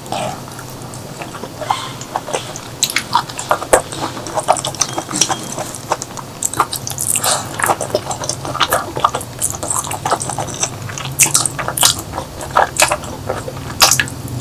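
A person chewing and biting food close to the microphone, wet mouth sounds with many short, sharp clicks and crackles that grow denser about three seconds in.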